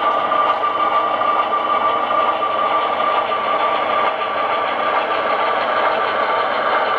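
HO scale model diesel locomotive running slowly, its onboard sound system playing a steady diesel engine sound with a constant high whine.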